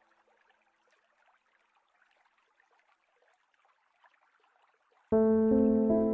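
Near silence with a faint hiss for about five seconds, then instrumental background music starts suddenly with loud sustained notes.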